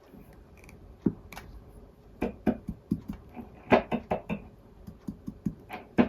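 Small hard objects being handled: a run of irregular clicks and knocks, busier and louder from about two seconds in.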